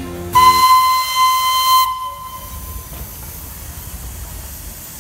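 Darjeeling Himalayan Railway steam locomotive sounding its whistle once, a steady high blast with a steam hiss, lasting about a second and a half and starting a moment in.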